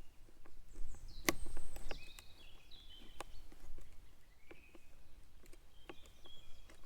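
Birds chirping outdoors, with scattered light clicks and knocks and one louder knock about a second in.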